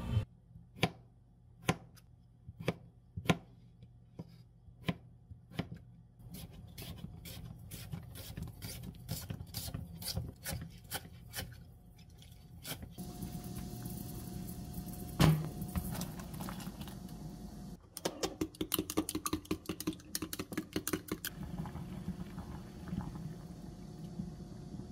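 Kitchen knife chopping vegetables, green onion among them, on a plastic cutting board: separate cuts about one a second at first, then quicker runs of strokes.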